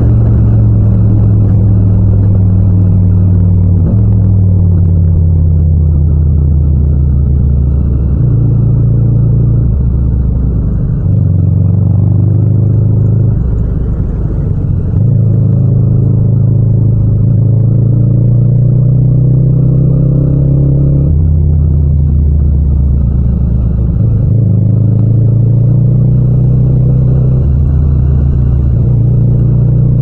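Yamaha MT-07's 689 cc parallel-twin engine running with no wind noise. The note climbs under throttle, eases off for a few seconds around the middle, and drops with a gear change about two-thirds through before climbing again.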